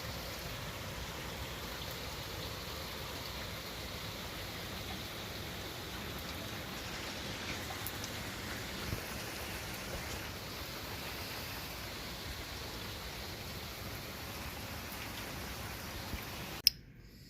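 Heavy rain falling steadily in a thunderstorm downpour. Near the end there is a sharp click, and the rain sound drops away abruptly.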